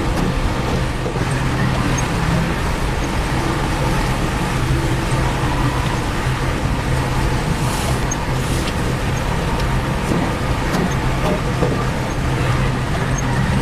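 Heavy construction machine's diesel engine running steadily with a constant low hum.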